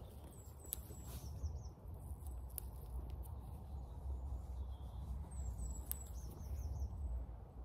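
A small songbird singing: a short phrase of thin, high chirps followed by a few quick falling notes, heard twice, about half a second in and again about five seconds later, over a steady low rumble.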